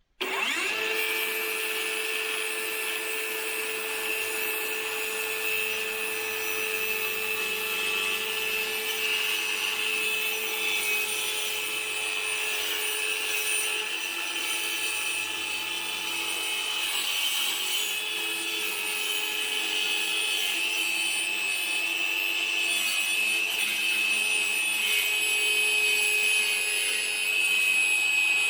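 Worx WU533 battery circular saw ripping 12 mm plywood lengthwise into strips, the motor running steadily under load throughout the cut. The sound starts abruptly.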